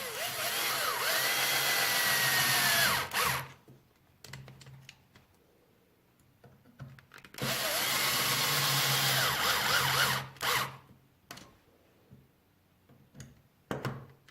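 Power driver driving two M3x25 flathead screws down, in two runs of about three seconds each with the motor whine bending up and down in pitch. Faint clicks fall between and after the runs.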